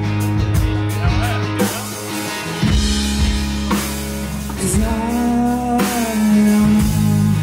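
Live rock band playing an instrumental passage: electric guitar, bass guitar and a drum kit, with held notes over a steady drum beat.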